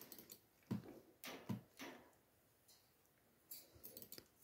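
Near silence with a few faint, short clicks from a computer mouse, a handful in the first two seconds and a few more near the end, as folders are opened.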